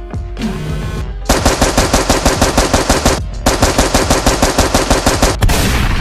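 Machine-gun sound effect: two rapid bursts of evenly spaced shots, about ten a second, each lasting about two seconds with a short break between. A loud noisy swish follows near the end.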